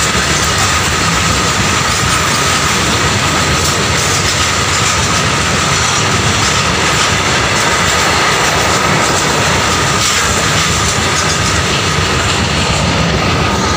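Freight train wagons rolling past at close range: a loud, steady rumble of steel wheels on the rails, with a thin high whine running through it.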